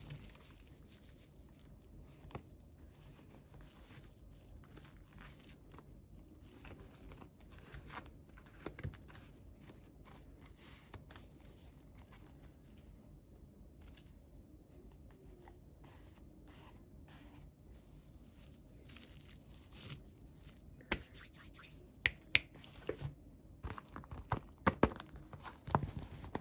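Toy packaging being handled and opened: faint tearing and crinkling, then a run of sharp clicks and taps near the end.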